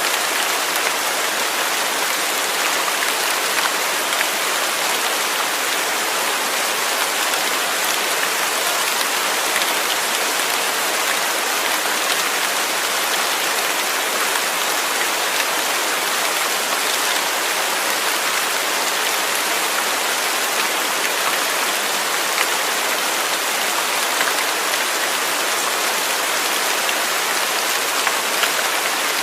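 Steady rain falling, an even hiss with fine pattering drops and no thunder.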